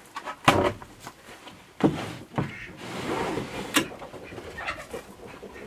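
Small wooden pop-hole door of a chicken coop being worked open by hand: a few sharp wooden knocks with a scrape between them.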